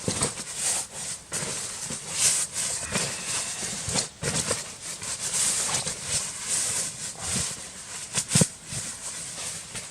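Irregular rustling and crunching handling noises, with sharper knocks about four and eight seconds in.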